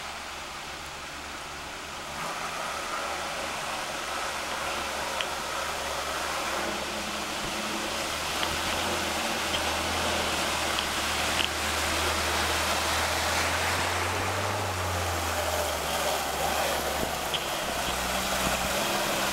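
Lada Niva 4x4's engine running as it wades up a flooded stream, with water rushing and splashing around its wheels and body. Both grow louder as it comes closer, the engine note swelling in the middle.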